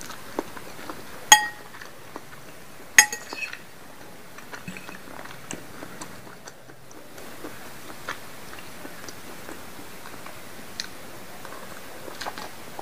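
A metal fork clinks sharply twice against the plate, each strike ringing briefly, as it twirls squid-ink noodles. Soft small wet clicks of eating follow.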